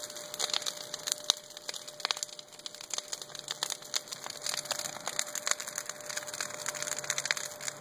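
Large bonfire of brush, branches and lumber boards burning, crackling with many sharp, irregular pops.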